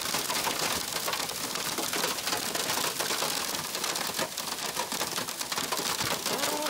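Hail pelting a car's windscreen and bonnet, heard from inside the car: a dense, rapid patter of hard ticks that keeps up steadily.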